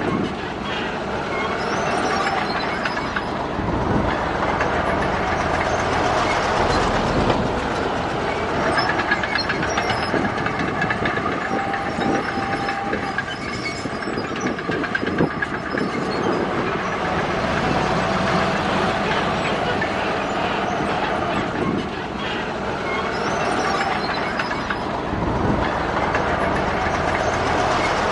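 Crawler bulldozer working: its diesel engine runs steadily while the steel tracks keep up a continuous clanking rattle, with occasional short metallic squeaks.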